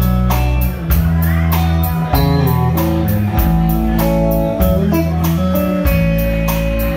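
Live country band playing the instrumental intro: electric guitar picking a melody over electric bass and a drum kit keeping a steady beat.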